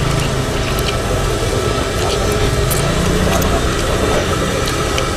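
Steady low hum of an idling motor vehicle engine, with short sharp clicks and slurps from noodles being sucked up with chopsticks.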